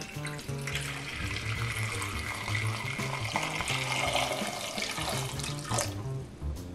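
Salt water poured in a thin stream into a rice cooker's inner pot, splashing onto eggs and into the water pooling around them; the pour stops about six seconds in. Background music plays under it.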